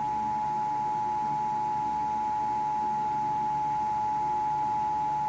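Emergency Alert System two-tone attention signal, two steady tones near 853 Hz and 960 Hz sounding together and held unbroken. It is the alarm that introduces an emergency broadcast, here a severe thunderstorm warning.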